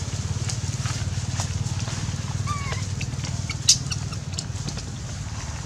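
A small engine runs steadily in a low drone, with scattered light clicks and crackles, like feet on dry leaves. A sharp click sounds about three and a half seconds in, and a short faint squeak comes about two and a half seconds in.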